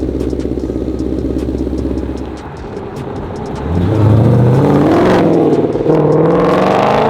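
Ford Shelby GT500's supercharged V8 idling with a steady low note, then revved twice from about three and a half seconds in, the pitch climbing and falling each time.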